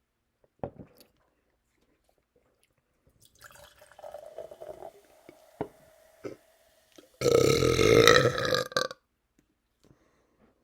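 A man belching after drinking seltzer. One long, loud burp comes about seven seconds in and lasts about two seconds, after softer mouth sounds and a few clicks.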